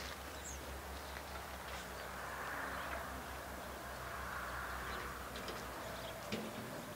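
Outdoor ambience: faint short bird chirps over a steady low hum, with a broad rushing noise that swells and fades in the middle. A single light knock comes near the end.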